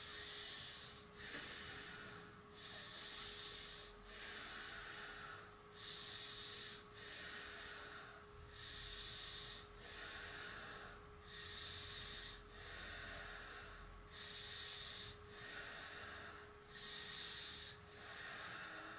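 A man's slow, audible breathing during a yoga pose, each inhale and exhale a soft hiss, in and out steadily about every two and a half seconds.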